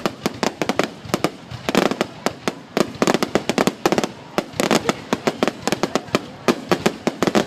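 Fireworks going off in a rapid, irregular string of sharp bangs and cracks, several a second, some of them overlapping in dense clusters.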